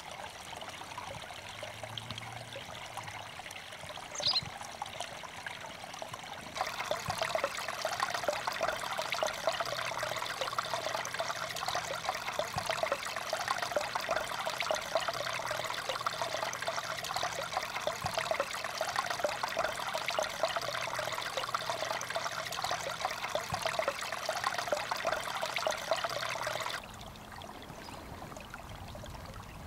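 Snowmelt water trickling and running, a steady sound that grows louder about six seconds in and drops back near the end.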